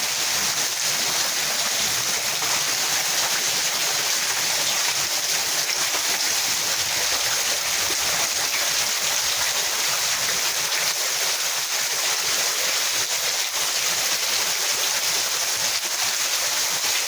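Storm water rushing in a steady, unbroken flow.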